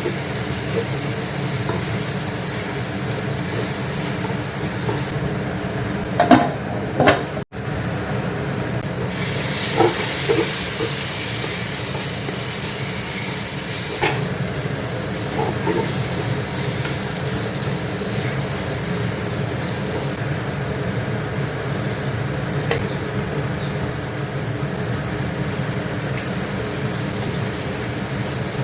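Food frying in a pan with a steady sizzle, stirred with a utensil that clinks against the pan now and then. The sound drops out for an instant at a cut about seven seconds in.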